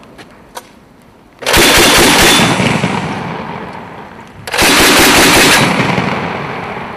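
Two short bursts of fire from a Mk 19 40 mm automatic grenade launcher, the first about a second and a half in and the second about three seconds later. Each burst lasts about a second and rolls away in a long fading echo.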